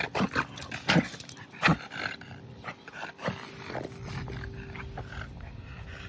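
A French bulldog's rapid series of loud, sharp snorting breaths, typical of a reverse sneezing episode. The breaths are strongest in the first two seconds and taper off by about four seconds in.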